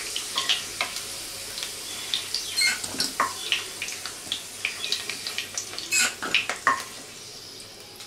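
Potato pieces sizzling in hot oil in a kadai as a steel spoon lifts them out, the spoon clinking and scraping against the pan again and again. The sizzling grows fainter near the end as the pan empties.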